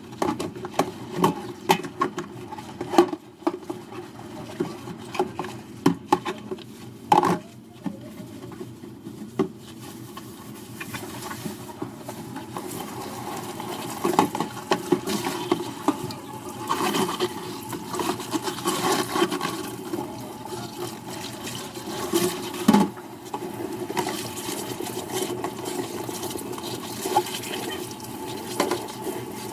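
Dishes being washed in a kitchen sink: repeated clinks and knocks of dishware against each other and the sink, with water splashing and running steadily from the tap through the second half.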